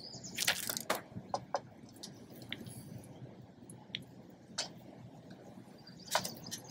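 Sharp little metal clicks and clinks of bolts and T-nuts being worked by hand on a metal roof rack's frame: a quick cluster in the first second, then scattered single clicks.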